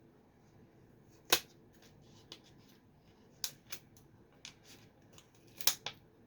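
A Pokémon card pack and its cards being handled and opened: several sharp crackles and clicks of the wrapper and cards, loudest about a second in and near the end.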